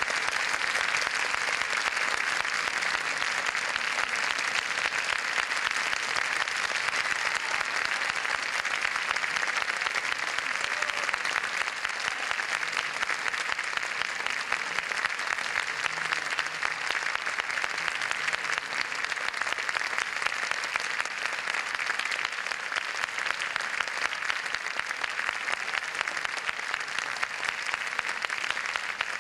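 Audience applauding steadily, a dense even clapping.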